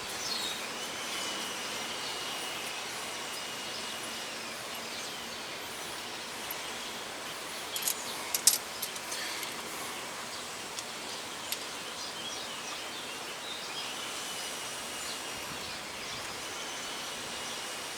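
Steady outdoor background noise with faint high bird calls, and a brief cluster of sharp metallic clicks about eight seconds in as a steering wheel puller and its bolts are handled.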